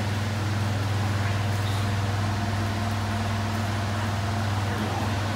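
Large electric floor fans running: a steady low hum that does not change.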